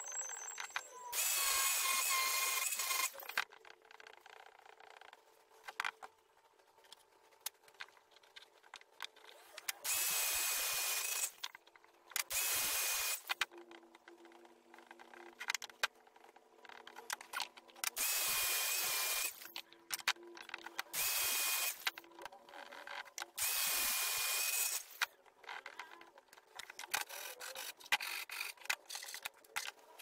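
Angle grinder fitted with a flap disc, run in six short bursts of one to two seconds against wood, its motor giving a steady whine during each burst. Small knocks and handling noises come between the bursts.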